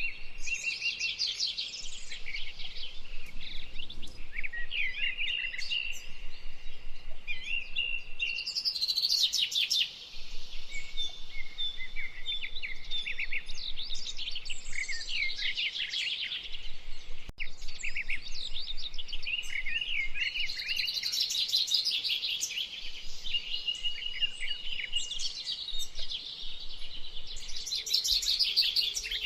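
A dense chorus of many birds chirping and trilling without a break, with rapid notes and some short held whistles mixed in.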